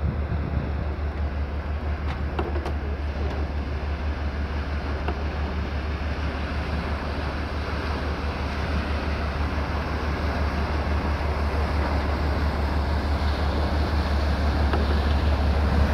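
Cargo ship passing close alongside: a low, rapid engine throb under the rush of her bow wave, growing slowly louder as she draws near, with wind noise on the microphone.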